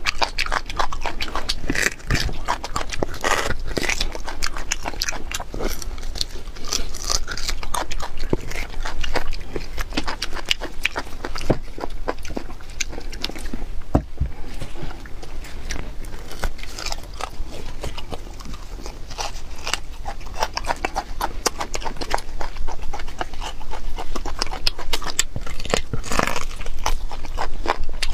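Close-miked eating sounds from a mukbang of red-braised beef bone marrow: wet chewing and smacking, with a dense run of quick wet clicks and squelches.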